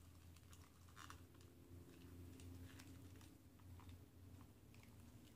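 Near silence with faint, scattered clicks from the plastic parts of a Marvel Legends Hulkbuster Build-A-Figure as it is handled and its head is pressed on, over a low steady room hum.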